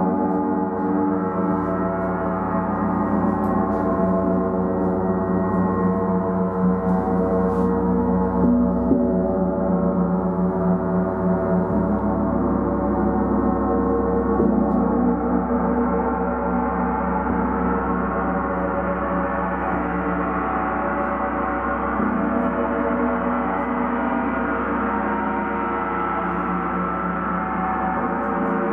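A gong played as a steady, dense wash of many overlapping ringing tones that swell gently.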